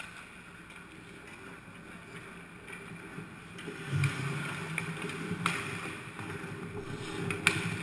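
Ice hockey skates scraping and carving on the rink ice, louder from about four seconds in as players close on the net, with two sharp knocks of stick or puck, the louder one near the end.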